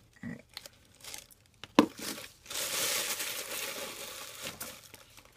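A sharp tap about two seconds in, then about two seconds of crinkly rustling, as a gloved hand scoops bleach powder into a plastic mixing bowl.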